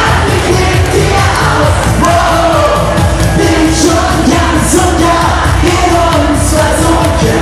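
Live pop music played loud with a steady beat: a male singer sings into a microphone, and the crowd yells and sings along.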